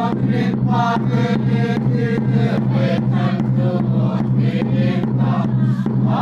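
Small congregation singing a hymn together, carried on a steady beat of about three strokes a second.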